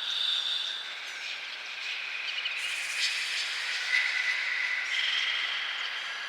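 Forest ambience: a steady high-pitched drone that shifts pitch a few times, with a few short bird chirps over it.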